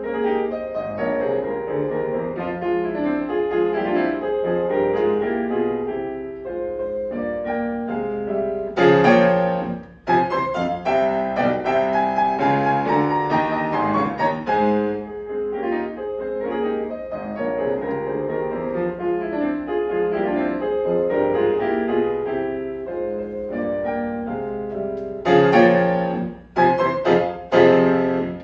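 Bösendorfer concert grand piano played solo in a classical recital: dense running notes and chords, with a loud struck chord about nine seconds in and a series of short, loud chords separated by brief gaps near the end.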